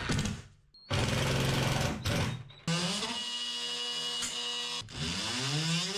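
Power drill running in separate bursts: a short rough burst about a second in, then a steady motor whine for about two seconds, then a whine that rises and falls in pitch near the end.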